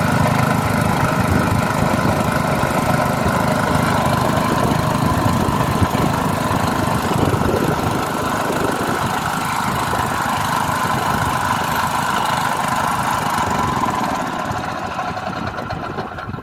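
A small engine running steadily, its sound easing off a little near the end.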